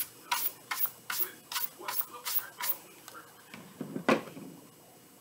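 A small metal can shaken hard by hand, in sharp rattling strokes about three a second, which stop after a couple of seconds; about four seconds in, a single thump as something is set down on the table.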